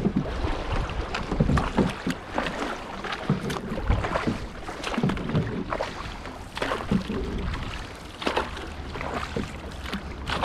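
Several canoe paddles dipping and splashing in the water with irregular strokes, with wind rumbling on the microphone.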